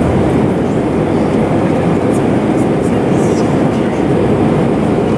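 Steady cabin noise of an Airbus A319 climbing out just after takeoff: its two jet engines at climb power and the air rushing past the fuselage make a deep, even noise.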